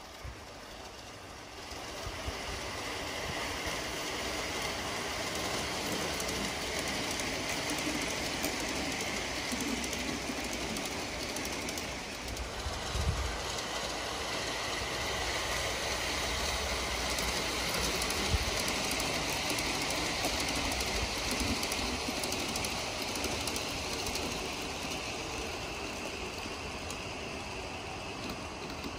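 USA Trains large-scale model train running on outdoor garden track: its motors and wheels on the rails make a steady running sound that grows louder about two seconds in, with a few short knocks partway through.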